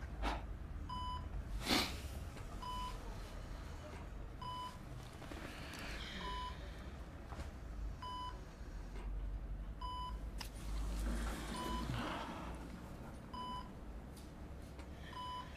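Bedside hospital patient monitor giving short, even electronic beeps at a slow, regular pace, over a faint room hum.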